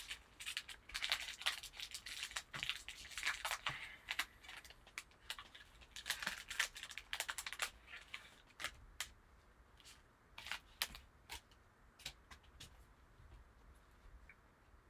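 Trading card pack wrapper being torn open and crinkled: dense sharp crackles for the first seven or eight seconds, thinning to scattered clicks later.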